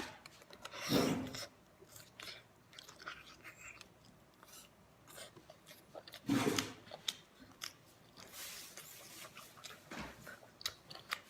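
A person chewing and biting food close to the microphone: scattered wet mouth clicks and soft crunches, with two louder bites about a second in and again after about six seconds.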